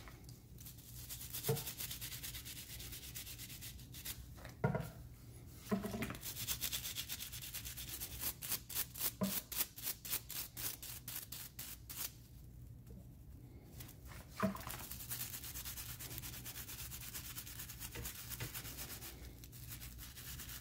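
Nylon brush scrubbing a 2016 TaylorMade M2 iron head in soapy water, a scratchy back-and-forth with a quick run of strokes, about three or four a second, in the middle. A few short knocks come in between, the loudest about five and fourteen seconds in.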